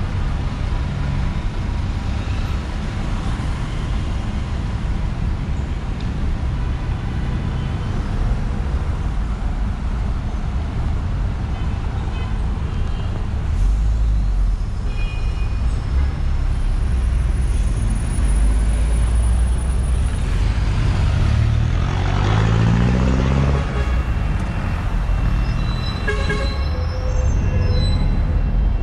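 Busy city-avenue traffic: cars and buses running past in steady engine and tyre noise. About two-thirds of the way in, a heavy vehicle's engine revs up as it pulls away. Near the end come a few short high-pitched tones.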